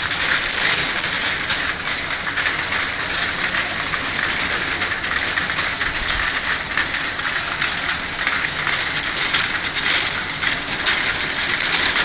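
External vial washing machine for 50 ml vials running: a steady, loud hiss of spray with many small rapid clicks throughout.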